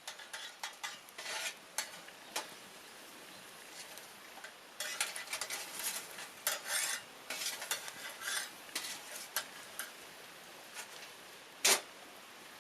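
Wood fire in a Picogrill-style fire stand crackling, with irregular bursts of snaps and a single loud pop near the end.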